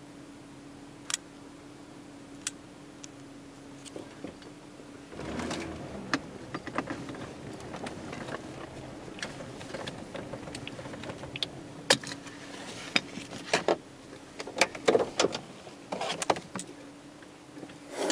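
Ford Windstar minivan driving slowly over a loose gravel slope: a steady engine hum, with gravel crunching and crackling under the tyres. It grows busier about five seconds in, and sharp pops and crackles come near the end.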